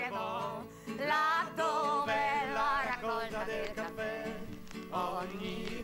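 Solo voice singing a traditional Italian folk song in long held notes with a wavering vibrato, broken by short pauses, over a low steady accompanying tone.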